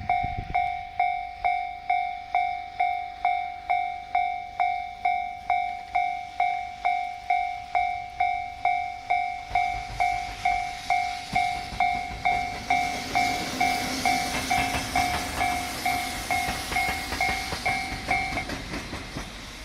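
Japanese level crossing warning bell ringing in two tones about twice a second, stopping near the end. From about halfway, a JR Freight EF65 electric locomotive running light passes over the crossing, a rising rush of noise with its wheels clattering over the rail joints.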